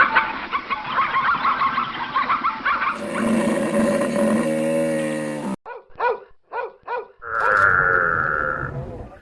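A string of different farm-animal calls cut one after another: first a dense jumble of squeals and grunts, then a long, low, drawn-out call about three seconds in, then a quick run of about five short calls, and finally a long, steady, nasal call.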